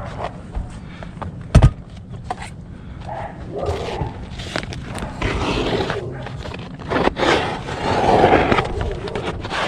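Roof tiles knocking and scraping as they are handled and walked on, with one sharp, loud knock about a second and a half in, and longer scraping after the middle.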